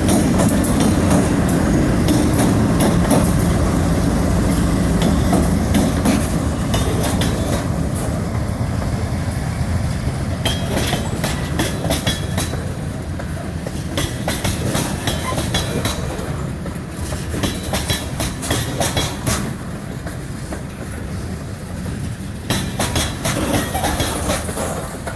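Freight train rolling past. The diesel engine rumble of the GE B23-7 locomotives fades over the first several seconds, then the freight cars clatter by with repeated wheel clicks over the rail joints, slowly getting quieter.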